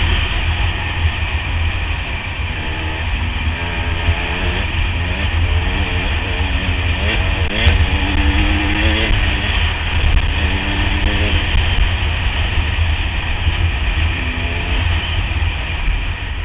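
Heavy wind buffeting and engine noise from an enduro motorcycle riding a gravel track, with guitar music mixed over it in short melodic phrases.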